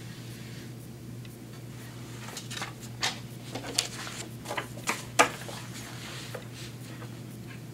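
Sheets of paper being handled and laid on a paper cutter's wooden bed: scattered rustles and light taps, with one sharper tap about five seconds in, over a steady low hum.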